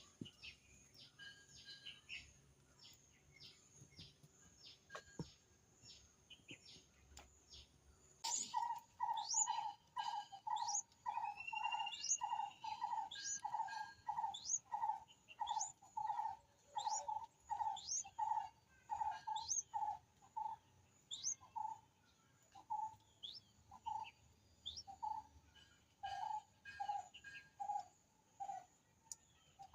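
Nestling birds calling. Quick, high, repeated chirps come first. About eight seconds in, a steady run of lower calls starts, roughly two a second, with short rising peeps over it.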